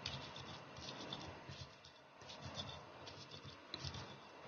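Stone pestle (ulekan) grinding chopped red chilies in a stone mortar (cobek): faint, repeated gritty scraping strokes, several a second, as the sambal is worked into a coarse paste.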